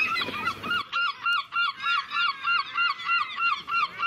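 A seagull calling: a fast, even series of repeated loud notes, about three or four a second.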